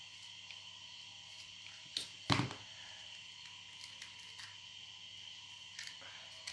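A plastic hot glue gun set down on a hard surface with two sharp knocks about two seconds in, the second louder. After that come light taps and crinkles of a small rolled paper cone pressed in the fingers, over a faint steady high-pitched whine.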